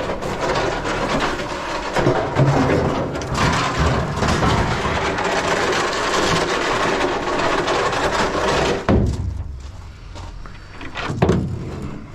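Scrap metal being handled: pieces clattering, scraping and knocking against each other, busy for about nine seconds, then a quieter spell with one more knock near the end.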